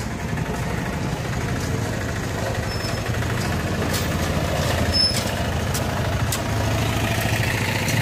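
Engine of a Piaggio Ape three-wheeler goods carrier running at low speed as it crawls over a rutted road, with a few sharp clicks and knocks along the way. A motorcycle engine comes in close near the end.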